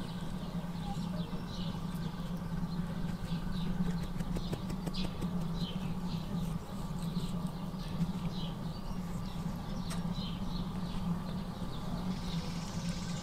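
Small birds chirping: short high chirps repeated every fraction of a second, over a steady low hum.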